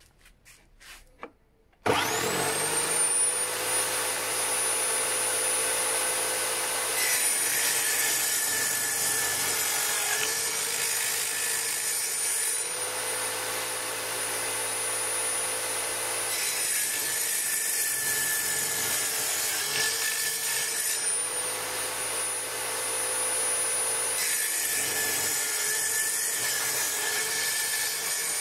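Homemade drill-powered table saw with a 160 mm circular blade starting up about two seconds in with a quickly rising whine, then running steadily. It cuts through wood three times, each cut adding a coarse rasp and pulling the motor's pitch down slightly under load.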